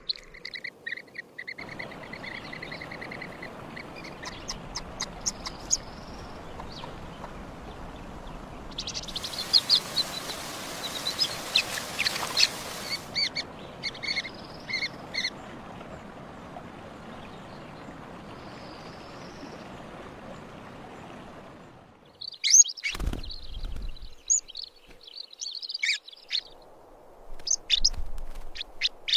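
Small birds chirping in short repeated notes over a faint steady hiss. The hiss grows louder for a few seconds near the middle, and a busier run of chirps comes in the last several seconds.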